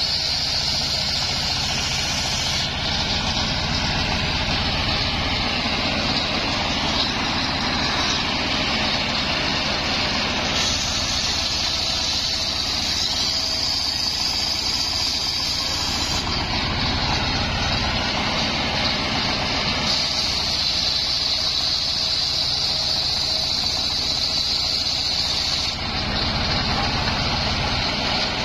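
Homemade engine-driven circular sawmill ripping a coconut-palm log. The engine runs steadily while the blade's high cutting whine comes and goes several times as cuts start and finish.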